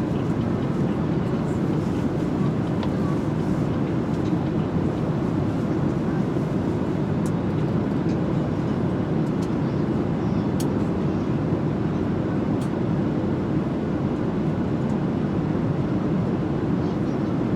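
Steady cabin noise of an airliner in flight, heard from inside the cabin: an even, low, unchanging rush with a faint steady hum.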